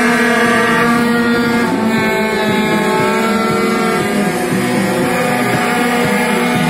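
Several small Derbi Variant-engined two-stroke racing motorcycles running at high revs together, their overlapping engine notes rising and falling as the riders ride and shift.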